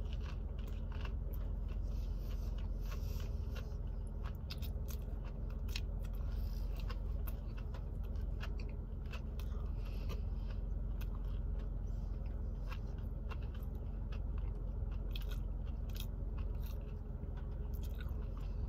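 A person chewing mouthfuls of a sub sandwich close to the microphone, with many small crisp crunches and clicks throughout, over a steady low hum.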